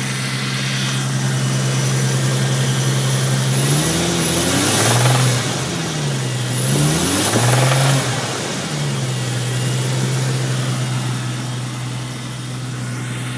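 Turbocharged Toyota 2J straight-six in an MkIV Supra idling steadily, revved up and back twice, about four and seven seconds in, then settling back to idle. The engine has a spun rod bearing; the knock is not obvious at idle.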